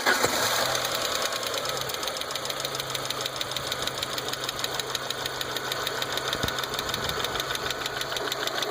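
1.8T turbocharged four-cylinder engine idling with a rapid, even knocking chatter: a knock newly coming from the engine.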